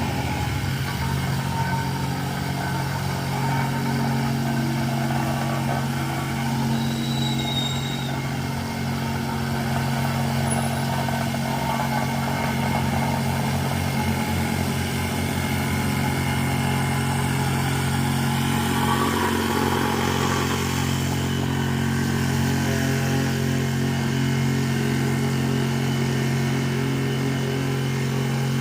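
An engine running steadily at a constant speed with an even low hum, and no revving or change in pitch.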